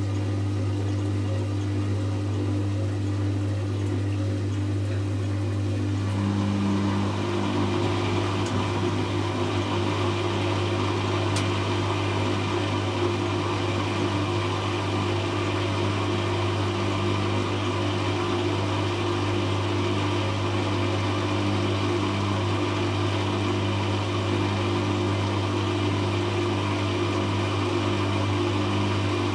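Hoover Classica 1100 AC164 washing machine running its intermittent 500 rpm spin: a steady low hum, joined about six seconds in by a louder, even whirring that then holds steady.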